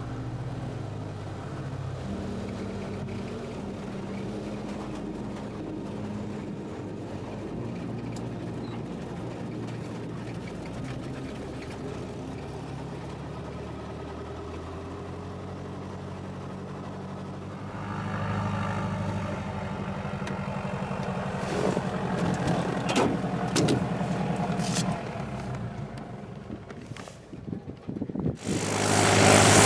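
An engine running steadily, with a few sharp knocks in the second half. It rises sharply to a loud rushing roar about a second before the end.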